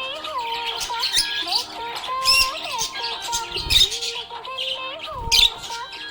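Budgerigars chirping and warbling in quick high bursts over background music with a sliding melody line. Two low thumps come in the second half.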